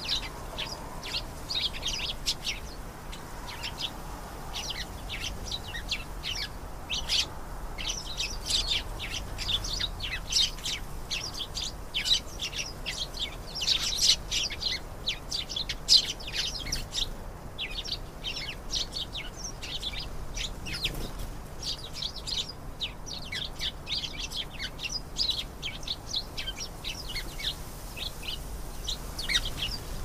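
Domestic canary singing a long, continuous song of rapid, high-pitched chirps and trills, with a brief pause about seventeen seconds in.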